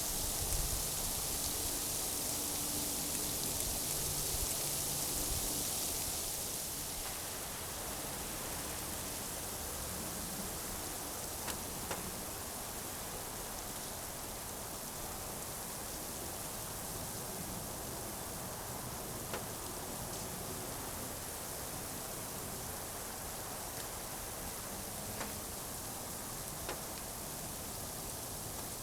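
Rain falling steadily, a somewhat louder hiss for the first six seconds or so, with a few single sharp ticks later.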